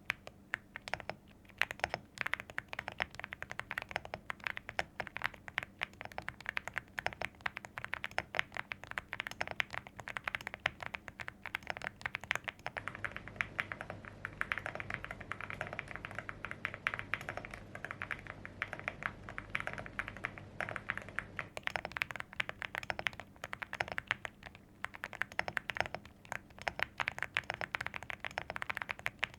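Typing on a Weikav Nut65 mechanical keyboard: a fast, continuous run of irregular keystroke clicks. The letter keys have Gateron Quinn switches and the modifiers have lubed Boba U4T switches.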